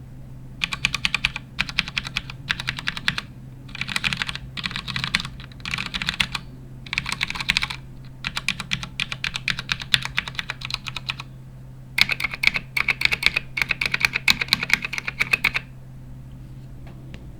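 Computer keyboard being typed on in bursts of rapid key clicks, a pause of about a second, then a faster, brighter run of typing that stops shortly before the end.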